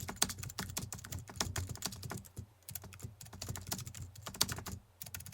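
Quick, irregular light clicks and taps, several a second, with short pauses between runs.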